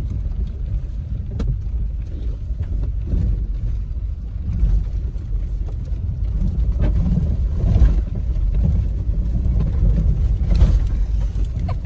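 Low, steady rumble of a 2018 Toyota 4Runner TRD Off-Road driving a rough off-road trail, with a few short knocks.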